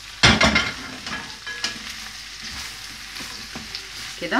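Diced vegetables and sausage sizzling in hot oil in a steel pan while being stir-fried with a wooden spoon. A loud rattle of stirring comes just after the start, then steady sizzling with a few light knocks of the spoon.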